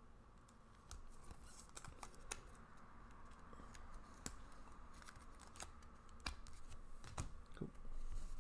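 Faint, irregular little clicks and light rustles of trading cards being handled and flipped through, with a few sharper clicks from about halfway in.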